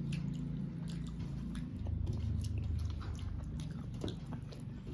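A person chewing a mouthful of rice and fish curry, with small wet mouth clicks scattered through and a low steady hum underneath.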